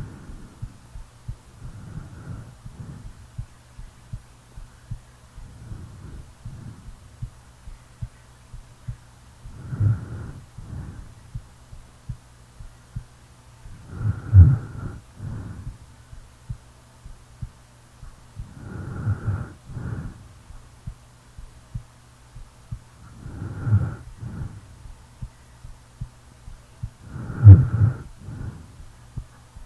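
A sleeping person snoring, one snore every four to five seconds, the loudest about halfway through and near the end, over steady thumps of their heartbeat and a low steady hum.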